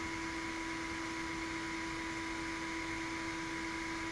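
Steady background hum with a few constant tones, like a fan or other small appliance running.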